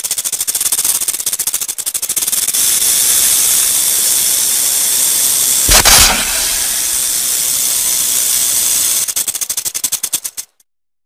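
Rattlesnake buzzing its tail rattle, a continuous high, hissing rattle made of very rapid clicks. About six seconds in there is a brief louder thump, and near the end the rattle breaks into separate clicks and cuts off suddenly.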